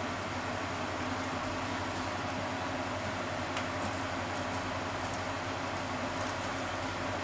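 Sausages and eggs frying under a glass lid on a lit gas burner: a steady sizzling hiss with a few faint pops.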